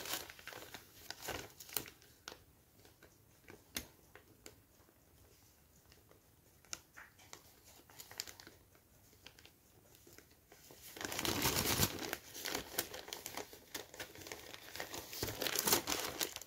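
Clear polythene bag holding plastic model-kit sprues crinkling as it is handled: sparse faint rustles and clicks at first, then louder, steadier crinkling for the last five seconds or so.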